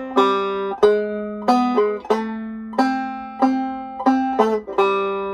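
Banjo, tuned a full step below standard, picking a slow melody phrase in single notes, about ten of them, the last left ringing near the end.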